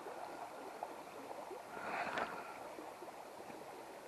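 Faint, steady rush of river water flowing, with a brief louder swish about two seconds in.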